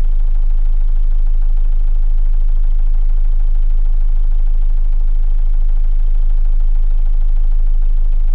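A 45 ft sailboat's inboard diesel engine running steadily, heard from inside the rear cabin, with a strong low hum and an even mechanical clatter.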